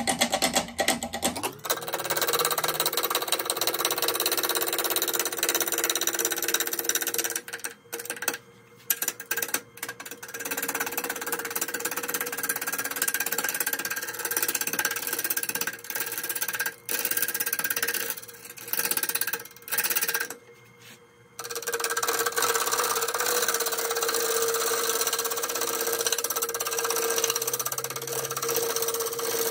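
A 5/8 inch bowl gouge roughing an ash log round on a wood lathe turning at about 545 rpm: loud, steady cutting noise over a hum, broken by several brief pauses where the gouge comes off the wood.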